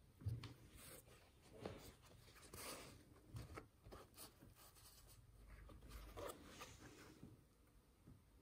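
Faint rustling and light handling noises from a Nike ISPA React sneaker and the tissue paper in its box as the shoe is turned over in the hands, with a few soft knocks, the clearest near the start.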